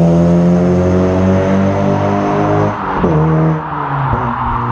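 Honda Civic Si's K24 four-cylinder with a Full-Race cat-back exhaust and Skunk2 catless downpipe, heard from the roadside at full throttle in second gear as the car drives away. The exhaust note falls slowly, then drops and breaks up about three seconds in before settling to a lower, steady drone.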